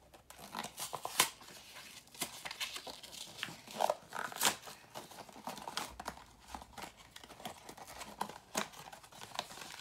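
A small cardboard toy blind box being torn open by hand: irregular ripping and crinkling of the cardboard and packaging, with sharp snaps now and then.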